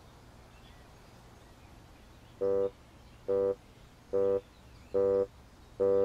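Five short, identical electronic-sounding beeps on one pitch, evenly spaced a little under a second apart, starting about two and a half seconds in after a faint quiet stretch.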